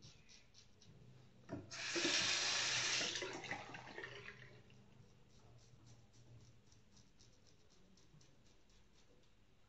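Bathroom tap running for a couple of seconds, starting about two seconds in and fading out, as the safety razor is rinsed under it. Before and after, faint short scraping strokes of the razor on upper-lip stubble, repeated at an even pace.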